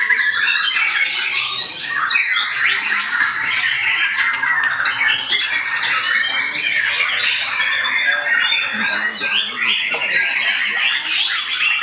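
Many caged songbirds singing at once in a dense, overlapping chorus of chirps, trills and whistled phrases with no pauses, the birds answering one another's song.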